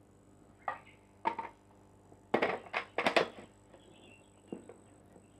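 Handling noises: several short knocks and clatters of hard objects being moved about, the loudest cluster about two to three and a half seconds in.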